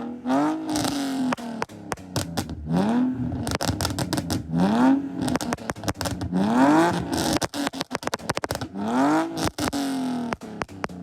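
BMW E46 328i's straight-six engine, stage-2 tuned, revved in about five short blips, each pitch climbing then falling back, with sharp cracks and pops from the exhaust between the revs.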